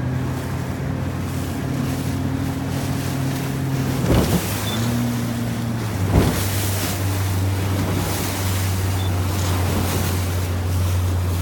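Motorboat engine running steadily, its pitch dropping about six seconds in as it throttles back, with two sharp thumps about four and six seconds in, over wind and water noise.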